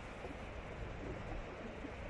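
Steady seaside wind buffeting the microphone, with the hiss of surf behind it.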